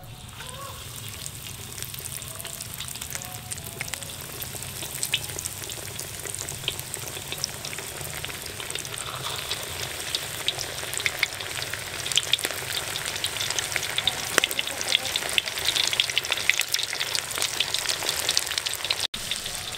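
Breaded cheese sticks deep-frying in hot oil in a wok: a steady sizzle with sharp crackles and pops that grow denser and louder as the pieces cook.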